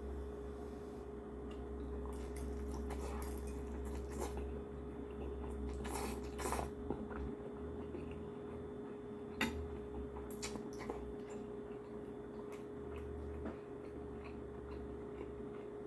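Someone eating: scattered short clicks and brief mouth and utensil noises between bites, over a steady low hum.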